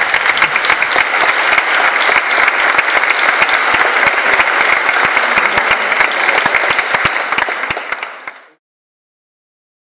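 Audience applauding, dense clapping that fades away about eight seconds in.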